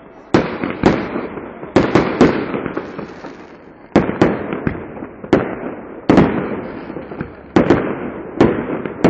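Fireworks display: a rapid, irregular series of about a dozen sharp bursts, some in quick pairs, each dying away over a second or so before the next.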